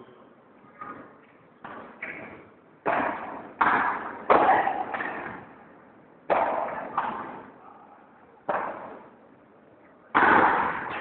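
Padel rally: the ball struck by rackets and rebounding off the court and the glass walls, a string of sharp knocks about half a second to a second apart. Each knock echoes in a large hall, and the loudest comes near the end.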